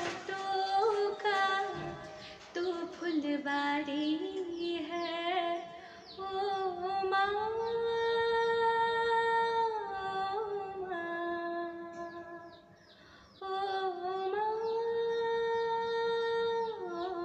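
A woman singing a slow melody in long held notes, with a short break about twelve seconds in.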